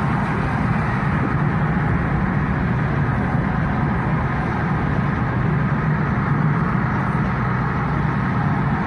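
Steady road and engine noise of a moving car, heard from inside the cabin: an even low rumble with no changes in pace.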